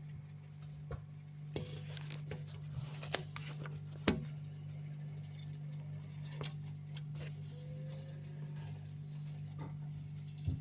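Steady low hum of a refrigerator, with light clicks and glassy clinks of things being handled; the loudest knock comes about four seconds in.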